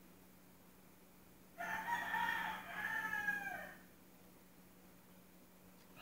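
A rooster crows once, a call of about two seconds starting a second and a half in, with its pitch dropping at the end. A faint steady low hum runs underneath.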